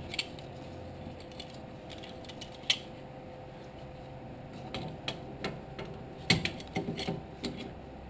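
Scattered light metal clicks and taps from a C-clamp being turned against a brake caliper to push the piston back into its bore, a single click about two and a half seconds in and a quick cluster in the second half, over a steady faint hum.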